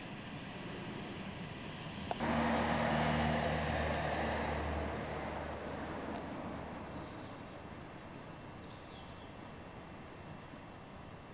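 Electric tram running close by: a low motor hum with steady tones and wheel noise cuts in abruptly after a click about two seconds in, then fades away over the next few seconds. Small birds chirp faintly near the end.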